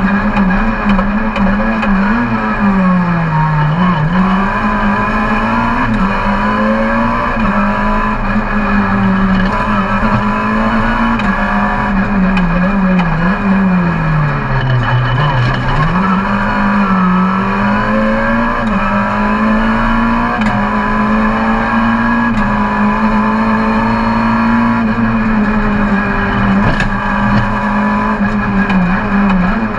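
Car engine and road noise heard from inside the cabin while driving; the engine note holds mostly steady, falling in pitch and climbing back twice, about 3 to 4 seconds in and again around 14 to 15 seconds in.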